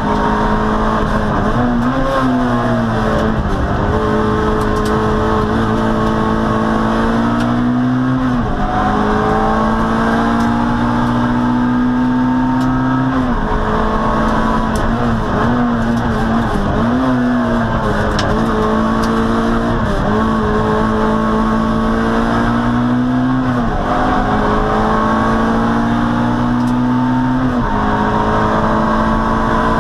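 Peugeot 106 N1 hillclimb car's engine running hard under full throttle. Its note climbs steadily and then drops sharply about ten times, at gear changes and lifts for corners.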